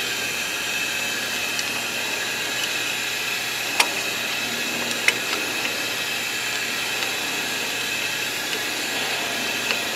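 Steady hiss of shop compressed air being fed into an engine cylinder through a spark plug port adapter, holding the valve closed. Two light clicks come about four and five seconds in as a hand-cranked valve spring compressor is tightened.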